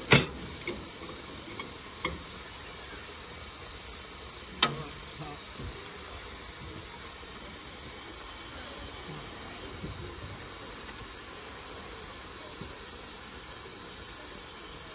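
A narrow-gauge Hunslet saddle-tank steam locomotive standing with steam up, hissing steadily. A few sharp knocks come from the footplate: the loudest right at the start, and another about four and a half seconds in.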